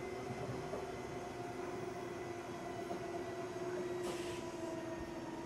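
Running sound inside an Odakyu 8000 series car with field-chopper control: wheels rumbling on the rails under a whine from the motors and gears that slowly falls in pitch as the train slows. A brief high hiss comes about four seconds in.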